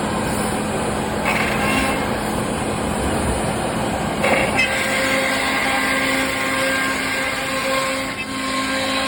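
Thermwood CNC router running, a steady mechanical rush with several whining tones from the spindle and drives. A new, higher set of tones comes in about four seconds in.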